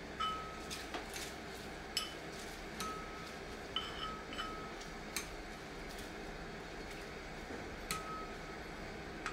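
Tableware being handled: about a dozen light clinks spread irregularly, several with a short ring.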